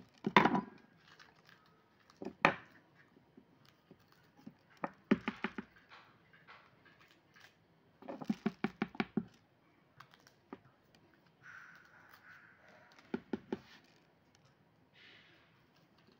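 A kitchen knife and hands working long green chili peppers on a cutting board. Sharp taps and clicks come in short quick runs, several in a row, a few seconds apart, with soft scraping and rustling in between.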